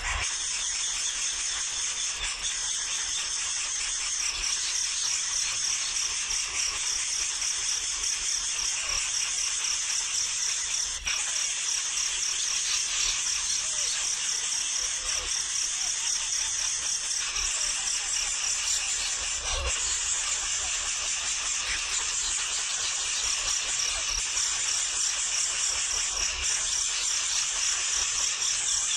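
Nestling birds cheeping noisily in a continuous high-pitched chorus.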